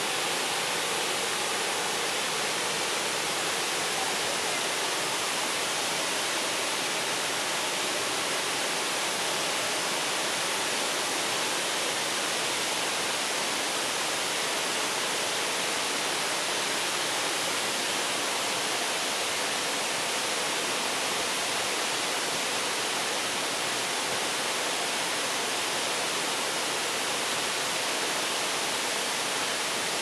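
Ban Gioc Waterfall's many cascades pouring into the pool below: a steady, unbroken rush of falling water.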